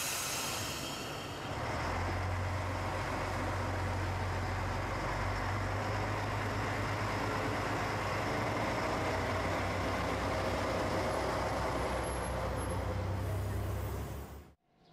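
JR Shikoku diesel railcar pulling away from the station. A short hiss of air at the start, then the diesel engine opens up about two seconds in into a steady low drone that lasts as it moves off, and cuts off suddenly near the end.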